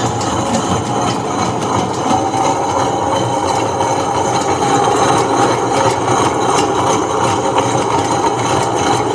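Premier compact table-top wet grinder running, a loud, steady motor hum.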